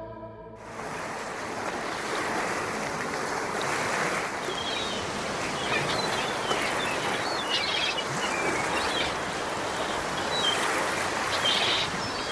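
Steady rushing water, with short high chirps, likely birds, coming in over it from about four seconds in.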